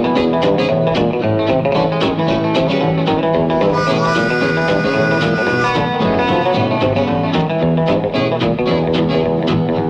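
Instrumental break of a 1946 country boogie 78 rpm record: guitars pick a steady, driving boogie rhythm with harmonica, and a long held high note sounds around the middle.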